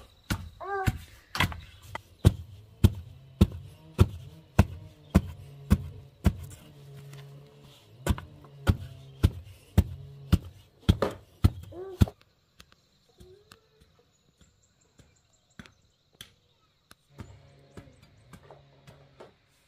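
Rhythmic thuds of a wooden pole tamping soil down around the base of a wooden post, about two strokes a second. The thudding stops about twelve seconds in, leaving only a few faint taps.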